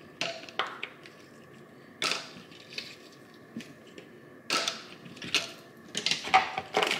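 Ice cubes dropped one by one into a blender jar for a smoothie: a series of hard, separate clacks, a few in quick succession near the end.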